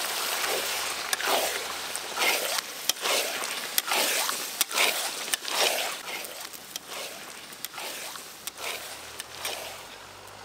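A spatula stirring and scraping meat with tomatoes and spice paste in a metal wok, in strokes roughly once a second, with sharp clicks of metal against the pan.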